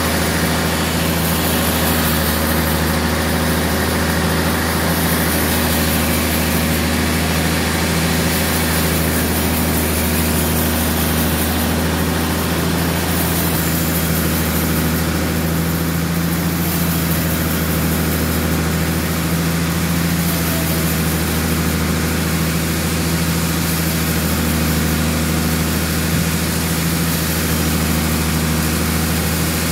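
Large band sawmill running steadily, its blade ripping lengthwise through a big dry tamarind log: a constant deep motor hum with a rushing cutting noise over it.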